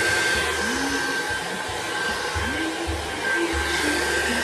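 Handheld hair dryer blowing steadily on damp hair: a constant rush of air with a steady high-pitched whine.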